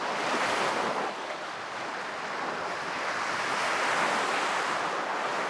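Surf washing onto a sandy beach: a steady rushing that swells a little toward the middle.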